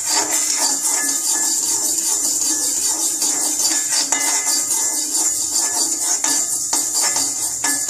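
Steel spatula scraping and stirring fenugreek seeds around a dry iron kadai as they are dry-roasted, a fast run of metal scrapes and seed rattles over a steady high hiss.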